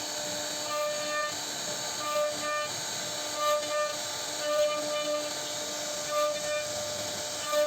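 CNC router spindle running with a steady high whine over a hiss of cutting wood, briefly louder in short pairs every second or so.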